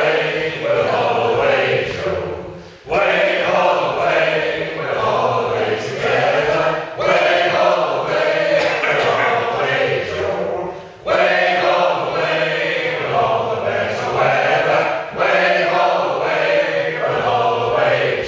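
A group of men singing a sea shanty together, unaccompanied, in phrases of about four seconds with short breaks for breath between them.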